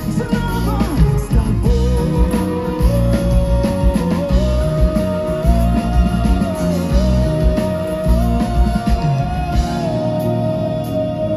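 Live rock band playing a song, with a lead vocal over electric guitars, bass, drums and violin, and a long melody line held and sliding between notes.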